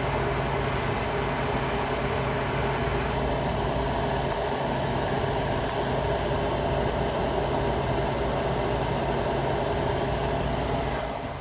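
Steady hum of running electrical machinery, a low mains-frequency drone with a mechanical noise over it, holding level and then dropping away near the end.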